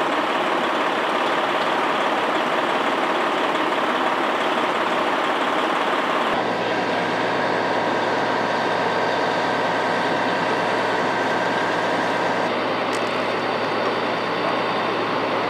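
Emergency vehicles' engines idling in a steady rumble with a hum. The sound changes abruptly about six seconds in and again near twelve seconds.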